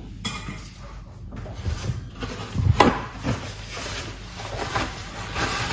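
A few scattered soft knocks and handling noises, the loudest about three seconds in.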